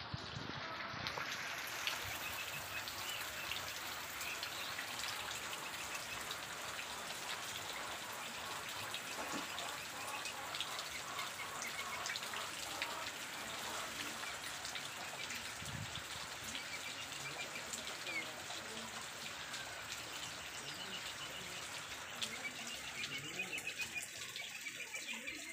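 Steady hiss of rain and running water, with faint short bird chirps now and then.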